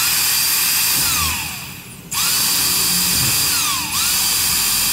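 Handheld electric drill boring out the mounting holes of a metal laptop hinge bracket held in a vise, widening them for M3 bolts. It runs at speed, dies away about two seconds in, then starts again, with a whine that slides down in pitch now and then.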